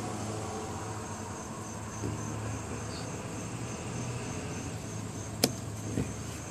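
Insects chirping in a steady, evenly pulsed high trill over a low steady hum. A sharp click about five and a half seconds in, and a softer one half a second later.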